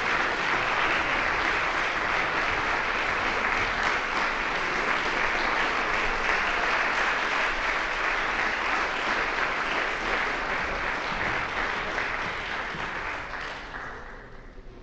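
Audience applauding steadily, the clapping thinning and dying down near the end.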